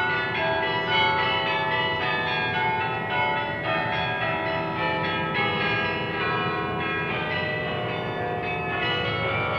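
Church bells ringing a tune, one stroke after another with no pause, each note ringing on into the next.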